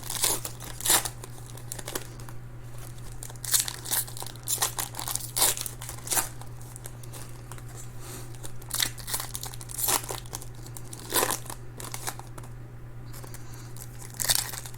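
Wrappers of Donruss Optic baseball card packs being torn open and crinkled, in short, irregular bursts of crackling over a steady low hum.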